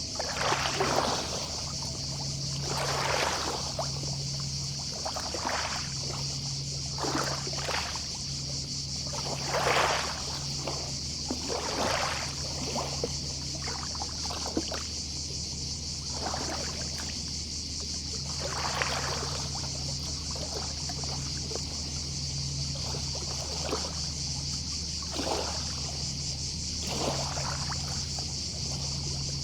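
Small, gentle sea waves washing onto the beach, a soft rush every second or two. A steady high chorus of distant cicadas runs underneath, along with a low hum that comes and goes.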